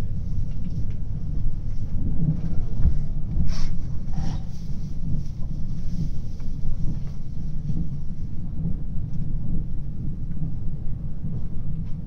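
Steady low rumble of a moving train heard from inside the carriage: wheels running on the rails. Two brief, higher-pitched rattles or hisses come about three and a half and four seconds in.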